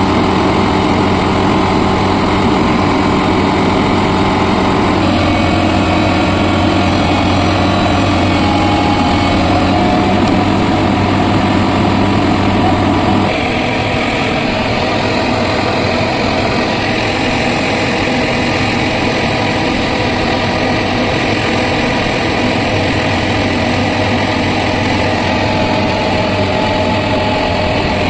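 Diesel engine of heavy construction machinery running steadily under work, the engine note changing suddenly about halfway through.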